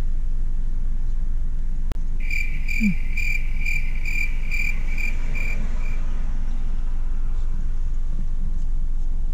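An electronic beeper sounding a repeated high tone, about eight even beeps over three and a half seconds, over the steady low hum of a car idling in the cabin. A single click comes just before the beeping starts.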